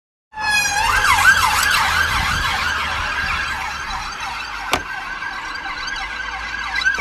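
Emergency vehicle sirens yelping in quick rising-and-falling sweeps. They start suddenly a moment in, over a low rumble, with one sharp click about two-thirds of the way through.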